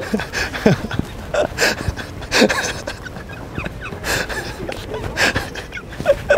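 Several women laughing and talking indistinctly, in short bursts of voice and laughter.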